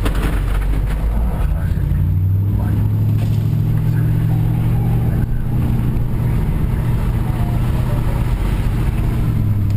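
Truck engine and road noise heard from inside the cab while driving. The engine note rises a little in the first couple of seconds, then holds steady.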